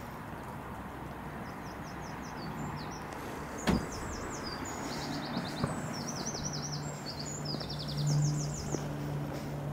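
A small songbird singing runs of quick, high chirping notes over a steady low hum, which swells briefly near the end. A single sharp knock sounds about a third of the way in.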